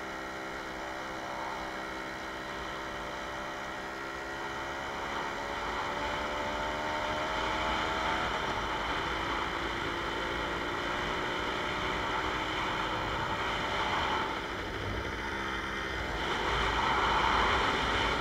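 Jawa 20 Pionýr moped's small single-cylinder two-stroke engine running steadily under way. Wind noise on the microphone grows louder near the end.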